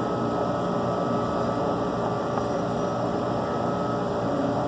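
Steady mechanical drone with a faint, even high whine running through it.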